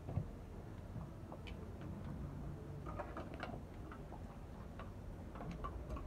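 A dog eating from a bowl: scattered faint clicks and taps of chewing and of the bowl knocking on the floor.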